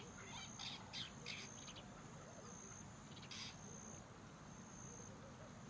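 Faint tropical forest ambience: a high, steady insect whine that breaks off briefly every second or so, with a few short bird chirps in the first second and a half and one more about three and a half seconds in.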